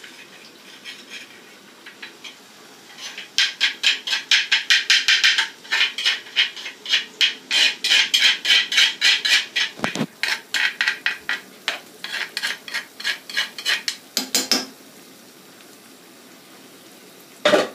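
Fast, rapid knocking and scraping of a metal spoon against a bowl, about five or six strokes a second, as ground pepper paste is scraped out into a frying pan. There is a heavier thump partway through and another knock near the end.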